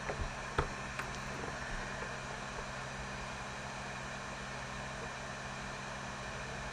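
Steady background hum and hiss, with a few short clicks in the first second.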